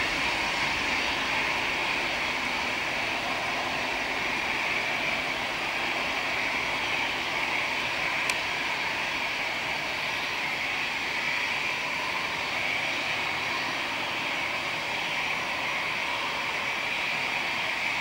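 Boeing 737-800's twin CFM56-7B jet engines at takeoff power, a steady roar heard from behind as the airliner rolls away down the runway and climbs out, easing slightly early on and then holding. A single brief click about eight seconds in.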